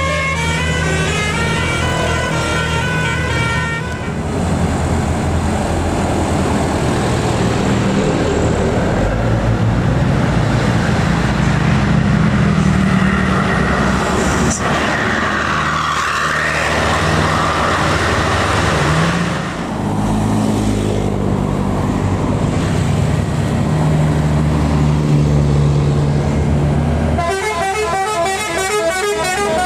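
Bus telolet horn, a multi-trumpet musical air horn, playing a quick melody of stepping notes, then a bus diesel engine pulling hard under load with road noise, its pitch rising once about two-thirds of the way through, before the telolet horn sounds again with rapidly alternating notes near the end.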